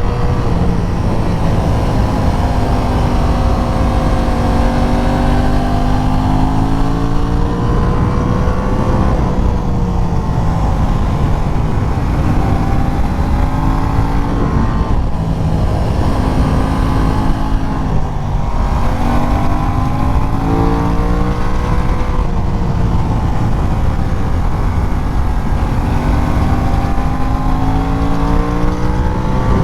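Aprilia RS660 parallel-twin sport-bike engine under way, its pitch swinging up and down several times as the revs rise and fall through the bends. A heavy low wind rumble runs underneath.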